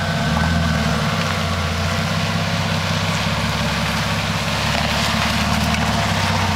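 Jeep Cherokee's engine running steadily at low revs as it crawls through a muddy rut.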